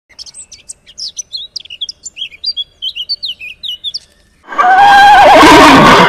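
A small bird chirping and whistling in quick, varied short phrases. About four and a half seconds in, a horse neighs loudly, its wavering whinny falling in pitch.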